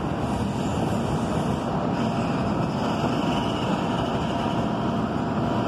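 An electric commuter train running between stations, heard from inside the passenger car: a steady rumble and rush of wheels on rail, with a faint high whine in the middle.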